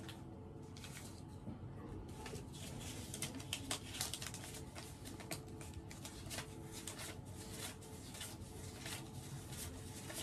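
Paper banknotes being counted by hand: faint rustling, then from about two seconds in a run of quick, crisp flicks as the notes are thumbed through, over a steady low hum.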